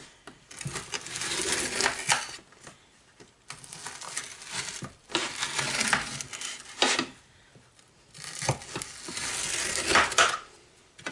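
A knife cutting through a metal baking pan of set peanut butter Rice Krispies treats: about four cutting strokes, each a second or two long, with a few sharp clinks of the blade against the metal pan.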